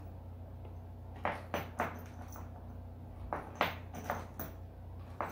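Steel bolts clinking and tapping as they are picked out of a plastic hardware bag and set down on a hard floor: a string of short metallic clicks in two bunches, over a steady low hum.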